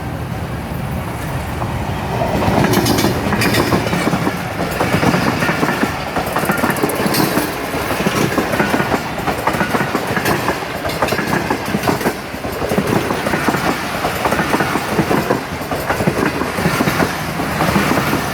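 Express passenger train pulling into a station, its coaches rolling past close by with wheels clacking over the rail joints. The clatter gets louder about two seconds in and stays loud.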